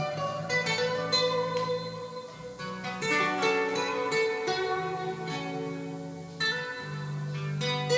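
Instrumental music of plucked strings, guitar-like, over sustained bass notes, played back from a Panasonic cassette deck.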